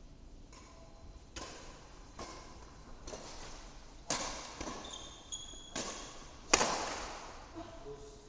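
Badminton rally: rackets striking the shuttlecock about once a second, each hit sharp and echoing in the hall, the loudest hit coming near the end. A few short squeaks of shoes on the tiled floor about five seconds in.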